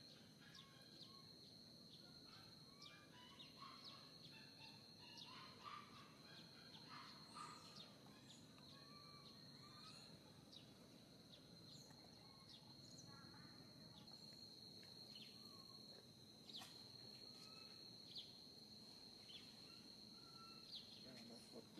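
Near silence, with faint outdoor ambience: a steady high-pitched insect drone throughout and scattered short, faint chirps.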